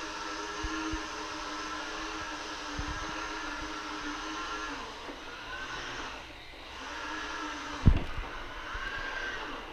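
Bissell SmartClean robot vacuum running steadily, its motor whirring as it roams looking for its charging dock. The whir changes pitch and drops in level briefly around six seconds in, and there is a single sharp knock about eight seconds in.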